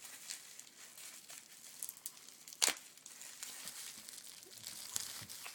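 Plastic packaging around a small puzzle cube crinkling and crackling as it is unwrapped by hand, with scattered small clicks and one sharp snap about halfway through.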